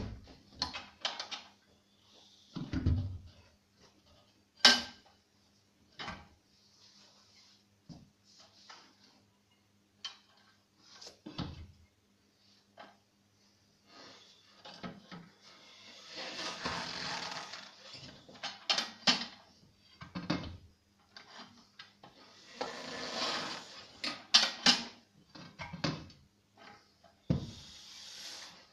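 A steel tyre bar and homemade manual tyre changer clanking and knocking irregularly as a car tyre's bead is levered over the steel wheel rim by hand, with stretches of scraping where the bar and rubber rub along the rim.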